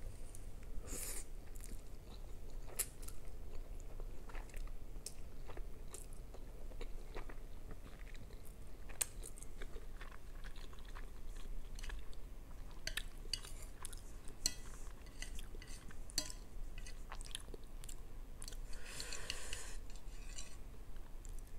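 Close-miked chewing and slurping of instant noodles, with scattered small clicks, including a longer slurp about a second in and another near the end.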